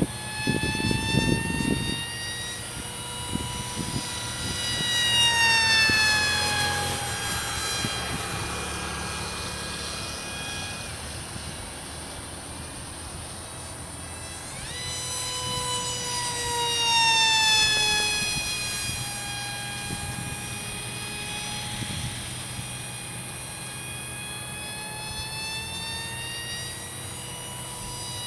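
Electric motor and propeller of a small radio-controlled delta-wing plane, whining steadily in flight. The whine swells and drops in pitch as the plane passes by twice, once a few seconds in and again a little past the middle. Wind buffets the microphone in the first couple of seconds.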